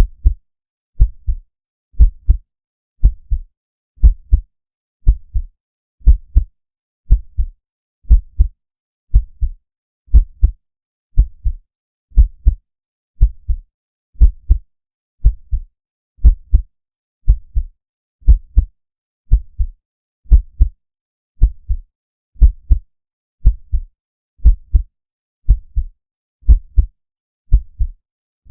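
Heartbeat sound effect: a slow, deep lub-dub, two low thumps close together repeating about once a second, with silence between beats.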